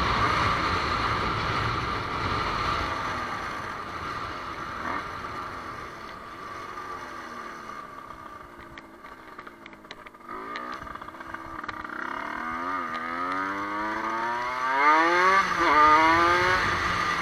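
Dirt bike engine easing off and dropping low near the middle, then accelerating hard, its pitch climbing in several steps as it revs up through the gears near the end. Rushing wind noise in the first few seconds.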